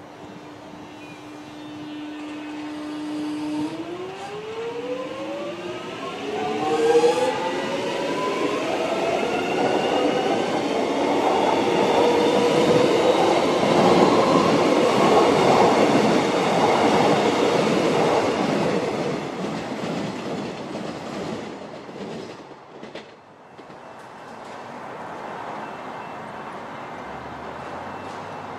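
Alstom X'Trapolis electric multiple unit pulling away: a steady hum, then its traction motors whine up in rising pitch as it accelerates. Wheel and rail noise then builds to a peak as the carriages pass close by and dies away.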